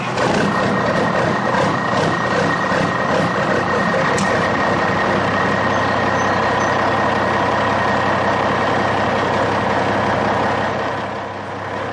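Truck engine idling steadily, a recorded sound effect rather than a noise from the plastic toy; it cuts in and cuts off abruptly.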